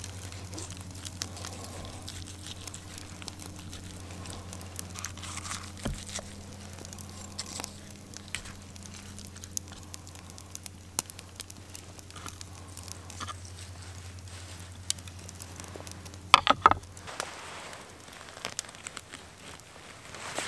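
A knife cutting and pulling apart roast chicken on a wooden chopping board, with small tearing, crackling and tapping sounds, under a steady low hum that stops near the end. Two brief, sharp, louder sounds come close together about three-quarters of the way through.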